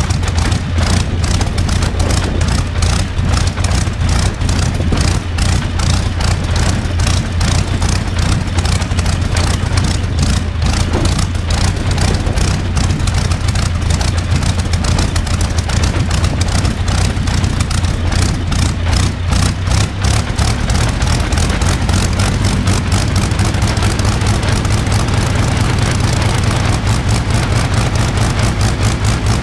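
Rolls-Royce Griffon 58 V12 aero engine running steadily on a test stand, driving its contra-rotating propellers, with a dense, even beat of exhaust pulses and a deep low hum. The engine speed picks up slightly in the latter part.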